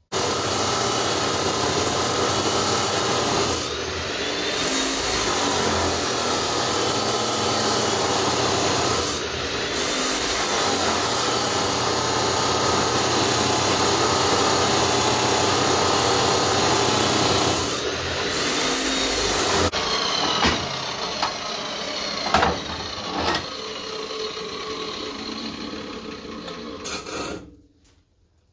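Power saw cutting steel C-channel to length: it starts abruptly and runs loud and steady with a few brief dips, goes quieter with scattered clicks about twenty seconds in, and cuts off near the end.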